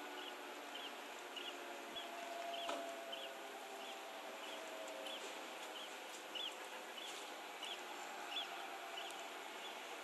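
Castle Castings dual-tone air-raid siren in its long wind-down after switch-off: faint steady tones fading away over the first half. Through it a small bird chirps regularly, about three chirps every two seconds.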